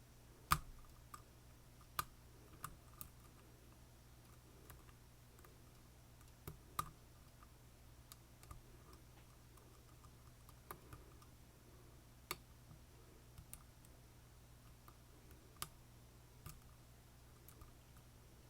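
Lock pick and tension wrench working the pins of an Assa Twin Combi lock: scattered small sharp metallic clicks at irregular intervals, the loudest about half a second in, over a faint steady hum.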